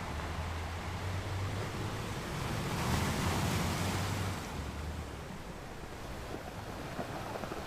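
Ocean surf: a wave breaks and washes in about three seconds in, swelling louder, then eases back to the steady hiss of the sea.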